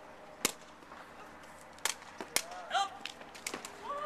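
Takraw ball kicked back and forth over the net in a sepak takraw rally: a series of sharp cracks, about six across the few seconds, some in quick pairs. A short shout comes in the middle.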